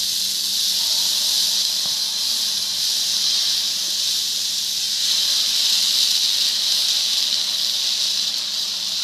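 Steady hiss of dosa batter cooking on a hot tawa while it is spread thin in circles, swelling slightly midway.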